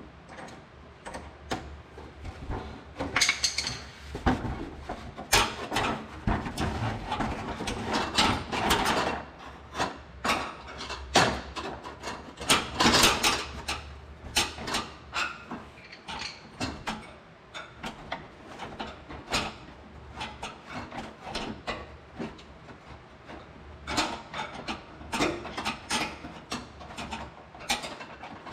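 Irregular clicks, knocks and rubbing of hands and tools working loose the oil filter on a Ford F-150's 3.5 EcoBoost engine, over a steady low hum.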